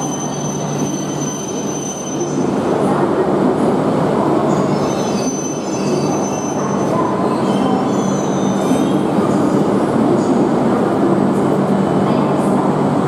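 Shinkansen train moving slowly along a station platform. A steady low hum and a rushing noise grow louder about two seconds in, with thin high wheel squeals over the top.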